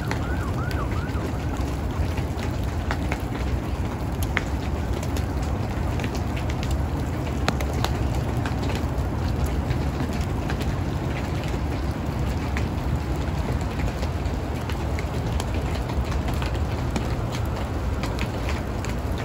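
Outdoor ambience in a light wet snowfall: a steady low rumble of wind with scattered sharp ticks of wet snow and drops landing on surfaces.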